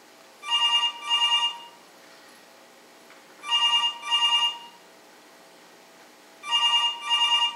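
Mobile phone ringing with a double-ring tone: three rings about three seconds apart, each made of two short trilling bursts.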